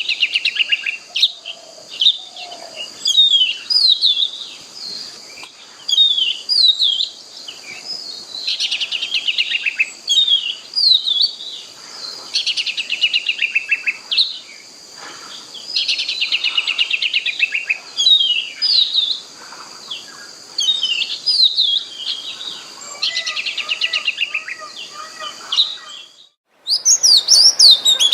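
Oriental magpie-robin (kacer) singing: varied phrases of rich whistles and rapid trills repeated every second or two, over a steady high-pitched background hiss. The audio breaks off briefly near the end and the song resumes louder.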